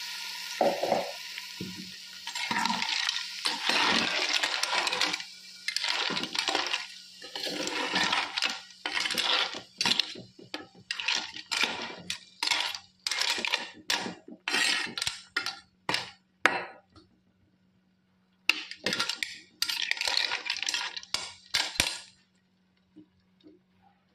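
Clams in their shells being stirred in a clay pot with a wooden spatula: shells clinking and scraping against each other and the pot in quick repeated strokes, with a pause late on. A sizzle of frying is heard at first.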